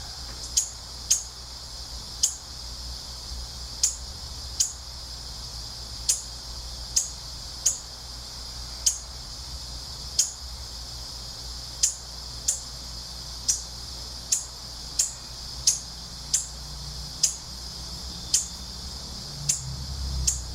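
A bird repeating short, high chirps that slide down in pitch, about one a second at uneven intervals, over a steady high hiss and a low wind rumble that grows near the end.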